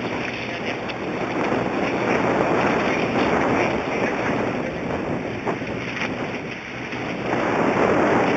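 Wind rushing over the microphone aboard a sportfishing boat, swelling louder a few seconds in and again near the end, with the boat's engine droning low underneath.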